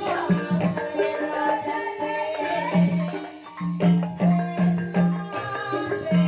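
Banyumasan gending music in the ebeg style: gamelan-type mallet percussion striking repeated pitched notes over a pulsing low note, with rattling percussion and a wavering melody line above.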